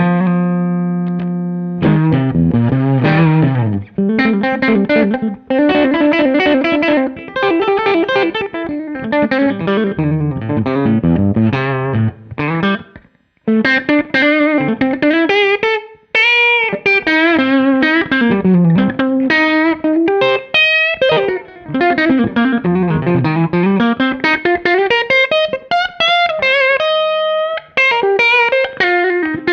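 Telecaster electric guitar played solo with some drive: fast runs of notes sweeping up and down the neck, mixed with a few held notes. The playing breaks off briefly about 13 seconds in.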